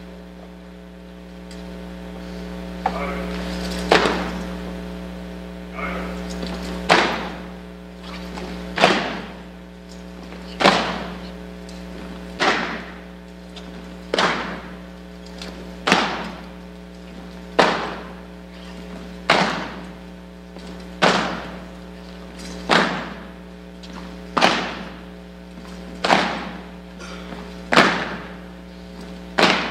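Slow, evenly spaced heavy footfalls, one about every 1.7 s, each echoing in a large gym: cadets marching at a slow ceremonial step. A steady low electrical hum runs underneath.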